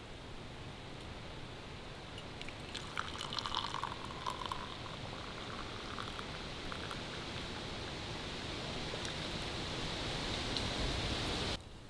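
Hot tea poured from a metal camp pot into an enamel camp mug: a steady splashing stream that grows louder as the mug fills, then stops suddenly near the end. A few light metal clinks come earlier, as the pot is lifted by its handle.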